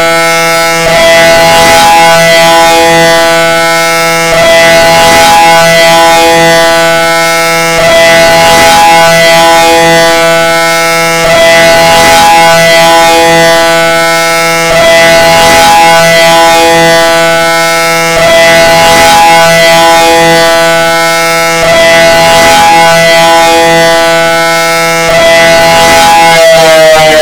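Civil defense siren sounding a loud steady tone, a chord of several pitches held level. Its loudness dips briefly about every three and a half seconds, and near the end the pitch starts to fall.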